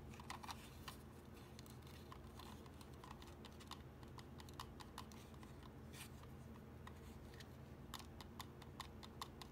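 Faint, scattered light plastic clicks and taps from a Hefty Smurf kids-meal toy being handled as its seesaw arms are pushed up and down, with a cluster of quick clicks near the end, over a low steady hum.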